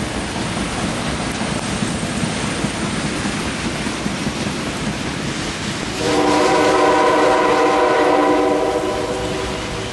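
Steady rushing noise of a train running by, then about six seconds in a locomotive horn sounds one long blast of about three seconds, several tones at once, before stopping.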